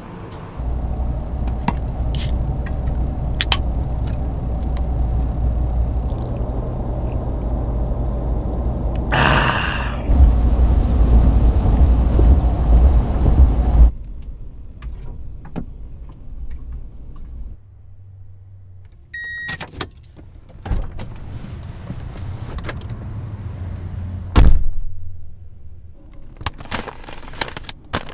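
Steady road and engine rumble from inside a moving truck, with a brief louder rush about nine seconds in, which drops away about fourteen seconds in. Then quieter sounds in the cab: a short electronic beep, scattered clicks, a loud thud a few seconds before the end, and paper rustling as a paper food bag is handled.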